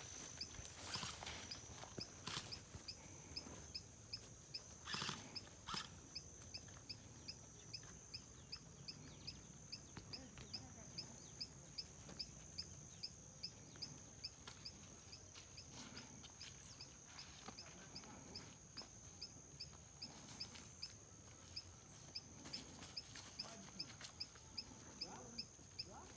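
Faint, regular high chirping, a little over two chirps a second, over a steady high-pitched whine. A few sharp clicks come in the first six seconds.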